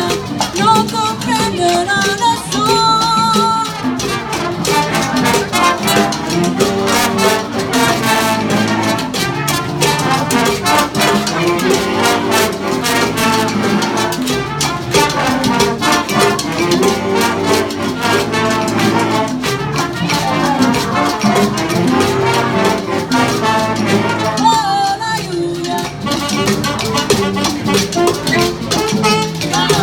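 Jazz band playing an instrumental salsa passage, a brass section leading over steady Latin percussion.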